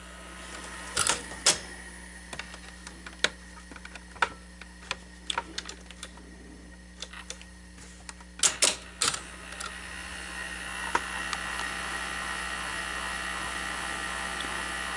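Clicks and clacks from the tape transport mechanism of a Sony SL-5000 Betamax VCR as it is handled. From about ten seconds in there is a steady whir of the deck running in play, with the capstan barely turning because the capstan belt needs replacing.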